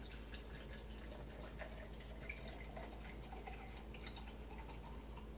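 Pinot Grigio wine being poured from a bottle into a measuring cup: a faint trickle and drip with scattered small clicks, over a steady low hum.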